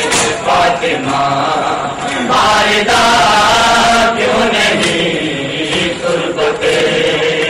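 Male voices chanting a noha in unison during matam, with slaps of hands striking bare chests cutting through the chant.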